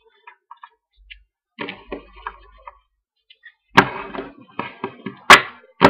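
A stack of football trading cards being handled and shuffled in the hands: light ticks and card-against-card rustles, with two sharp loud snaps about four and five seconds in.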